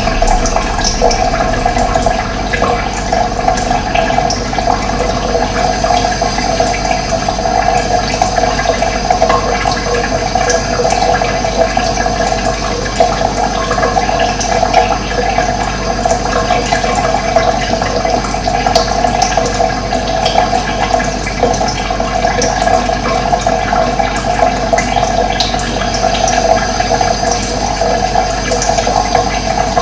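Steady rush of running water, with short high bird chirps now and then.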